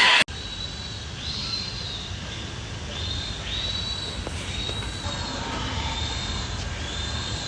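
Piglets squealing: a series of high, drawn-out squeals, about one a second, over a low rumble.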